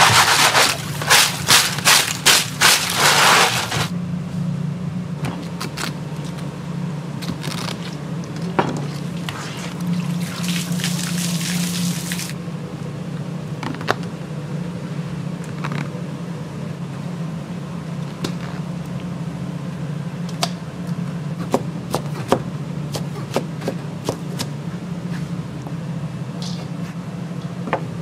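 Kitchen work: water runs in loud bursts over the first few seconds and again around ten seconds in, with scattered clicks and knocks of utensils over a steady low hum.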